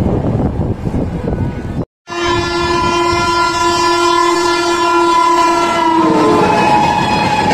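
Steady rushing rumble of a train at speed. After a brief cut, a WAP-7 electric locomotive's air horn sounds one long, steady chord. About six seconds in, its pitch drops as the locomotive passes, and the rumble of the passing train follows.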